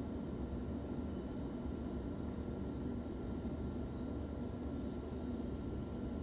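Steady low hum inside a stationary electric passenger train carriage, its on-board equipment running while it stands at a platform, with a faint constant whine above the hum.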